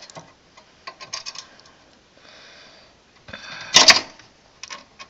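Small screwdriver driving screws into a DVD drive mounted in a metal PC case: scattered metal clicks and a short scrape, then a loud metallic clatter a little past halfway through. The screws are awkward to fit and bump around in the drive bay.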